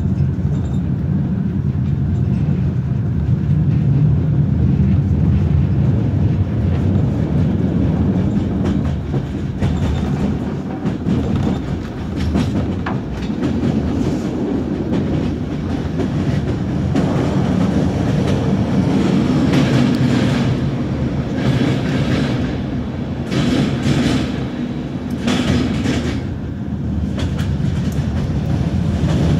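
Train running along the track: a steady rumble with wheels clattering over the rails, and brief louder surges of clatter in the second half.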